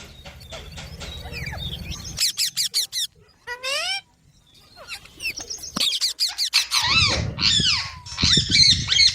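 Baby green parrot chirping. It starts with a quick run of short, high, falling chirps and a single rising call, then after a short pause a string of louder, squawky chirps near the end. A low rumble lies under the first two seconds.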